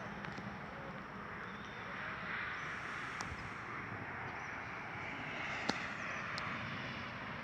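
Steady outdoor background hiss that swells slightly a couple of seconds in, with a few faint sharp clicks.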